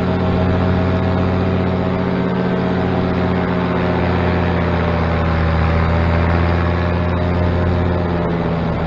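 Paramotor engine and propeller running steadily at cruise power in flight, a constant engine drone with a slight dip in pitch near the end. The propeller has, from the sound, lost one end tip of its new prop tape.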